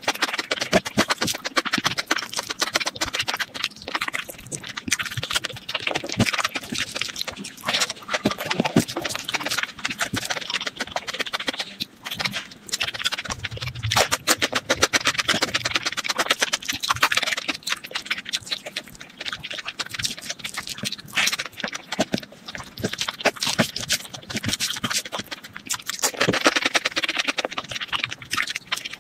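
Close-miked mouth sounds of a person eating: wet chewing and lip-smacking with a steady stream of small clicks.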